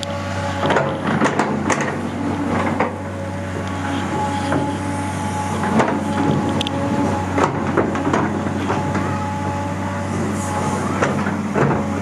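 Hydraulic excavator's diesel engine running steadily at a constant pitch, with scattered sharp knocks over it.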